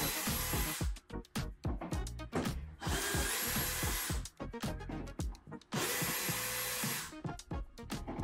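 Cordless DeWalt drill-driver backing screws out of a tailgate's inner panel: three short runs of the motor, each about a second, with clicks and knocks in between.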